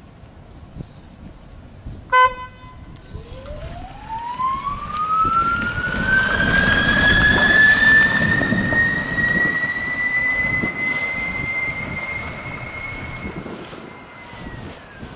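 Duyunov DA-90S induction motor in a small electric pickup whining under acceleration, the whine rising steadily in pitch over several seconds, levelling off and dropping near the end, with tyre noise loudest as the truck passes. A short horn toot about two seconds in.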